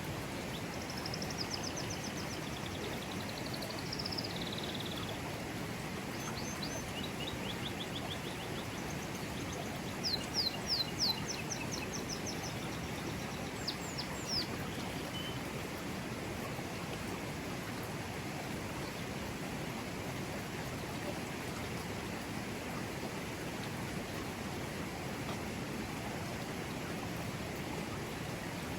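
Forest river flowing steadily. Birds call and sing over it through the first half, including a run of four loud, quick falling notes about ten seconds in.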